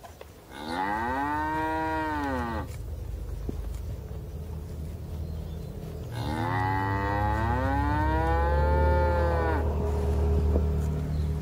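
Cattle mooing: two long moos, each rising and then falling in pitch, the second longer than the first. A low steady rumble sits underneath, louder in the second half.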